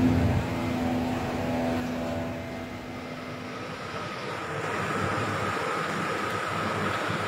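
Steady mechanical hum and hiss. A low hum fades over the first three seconds, and a steadier, higher hum comes in from about four seconds.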